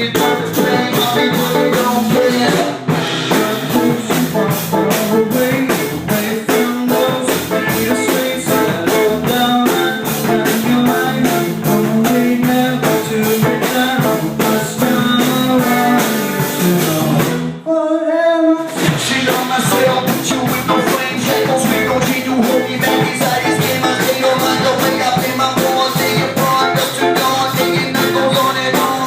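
Rock band playing live, with a drum kit keeping a steady beat under guitar and bass. About 17 seconds in the band stops for a second, leaving one wavering held note, then crashes back in.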